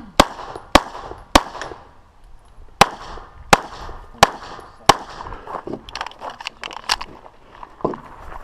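Handgun shots fired by a competitor on an action pistol stage, each a sharp crack with a short echo. Seven loud, evenly paced shots come in the first five seconds, then a quicker run of quieter cracks.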